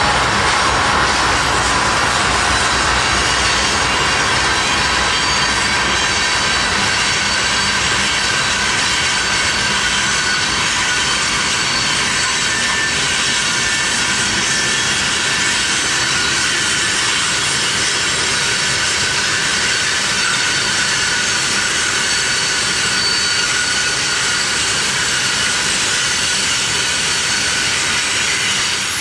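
Union Pacific diesel freight train passing: the locomotives' low rumble goes by in the first couple of seconds, then freight cars keep rolling past with a steady rush of wheel and rail noise and thin, high, steady wheel squeal from the curve.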